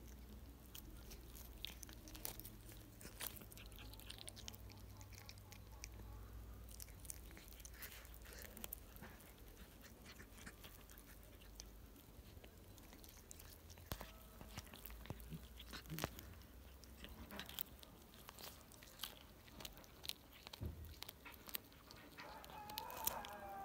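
Cat chewing and crunching on a pigeon carcass: irregular soft clicks and crunches as it bites through flesh, feathers and small bones.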